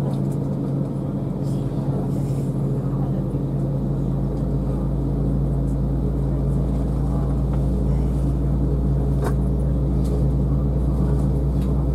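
Steady drone inside a jet airliner's cabin while it sits stationary on the ramp: a constant low hum with a deep rumble that grows slightly louder in the first couple of seconds.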